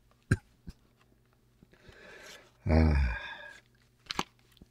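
A man's wordless vocal sounds at the microphone: a soft intake of breath, then one short voiced sound falling in pitch, with mouth clicks before and after it.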